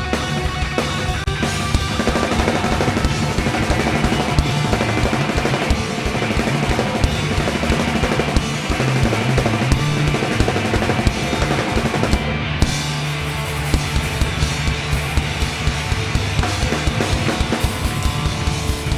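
Live rock band playing loudly, with busy drum kit (bass drum and snare) pounding under guitar and bass; the cymbals and highs drop out briefly about halfway through.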